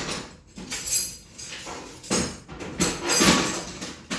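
Hard objects being handled and moved about, with several knocks, clinks and scrapes, the longest and loudest scrape a little past halfway.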